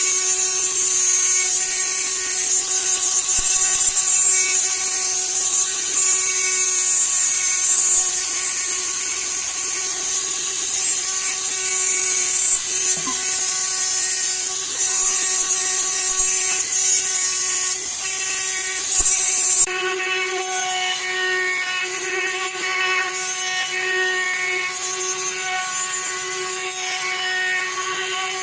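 Electric polishing tool running at a steady pitch while its polishing wheel works against a metal motorcycle footpeg, with a strong hiss of abrasion. About two-thirds of the way through the hiss stops and the motor runs on alone.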